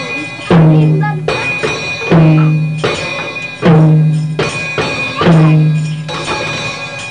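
Music with a beat: a heavy low note hits about every second and a half, with percussion and a singing voice over it.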